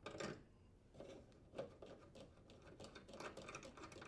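Faint scattered clicks and taps of hands working the cold water faucet and unthreading the washer inlet hose coupling from the faucet port, coming more often in the second half.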